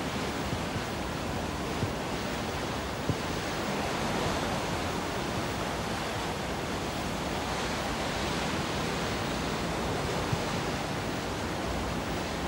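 Steady rush of sea water along a ship's hull and wake, with wind on the microphone; a few faint knocks stand out briefly.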